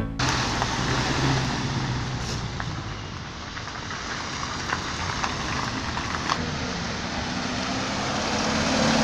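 Street traffic noise: a steady rush of passing vehicles with engines running, with a faint low hum underneath.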